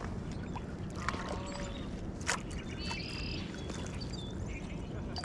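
Shallow lake water splashing and sloshing around a landing net worked at the shoreline with a small trout in it, with a sharp click about two seconds in and a short bird call about three seconds in.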